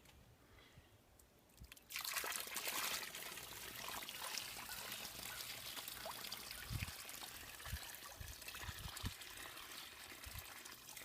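Water pouring and trickling onto a small garden dirt dam, starting suddenly about two seconds in and slowly easing off, with a few soft low thumps in the middle.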